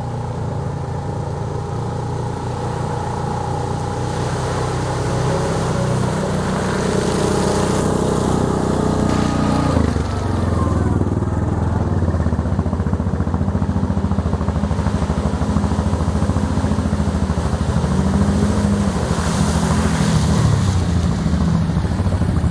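Off-road utility vehicle's engine running under way. Its pitch climbs for several seconds, drops sharply about ten seconds in, then rises and falls repeatedly as the throttle changes.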